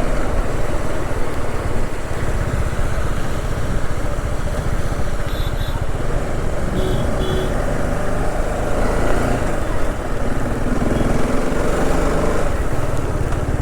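Motorcycle engine running steadily while riding, with road and wind noise. Two quick pairs of short high beeps come about five and seven seconds in.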